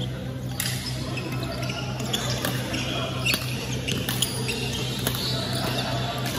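Badminton rally: sharp cracks of rackets striking the shuttlecock at irregular intervals, with short high squeaks of court shoes on the hall floor, over a steady low hum.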